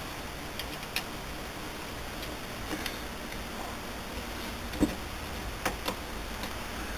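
A handful of light metallic clicks and clinks as the back gears of a South Bend 9A lathe are turned and worked into place by hand, the loudest a little before five seconds in, over a steady low hiss.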